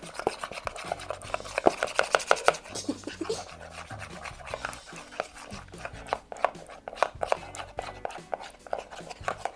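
A spoon clicking and scraping against the sides of a container while stirring a glue-and-paint slime mixture: a quick, irregular run of clicks and taps.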